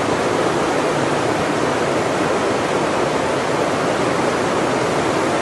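Loud, steady rushing of water, an even hiss with no swells or breaks.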